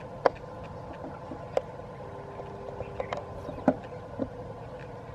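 Steady hum of a diesel locomotive engine, with about half a dozen sharp, irregular clicks and knocks over it.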